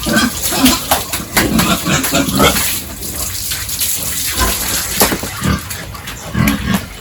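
Pigs grunting in their pen over splashing water, with scattered knocks and splashes throughout.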